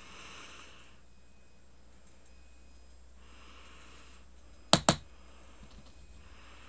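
Two sharp clicks a fraction of a second apart, about three-quarters of the way through, as small craft pieces are handled at the table, with soft breaths through the nose every few seconds.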